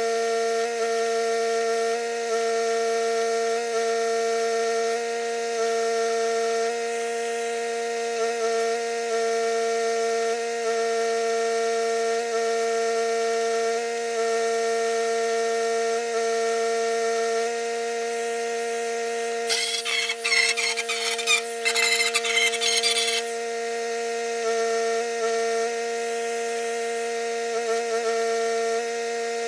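Steady electrical hum from shop equipment, a machine's mains buzz. About two-thirds of the way in it is broken by roughly three seconds of loud, sharp crackling.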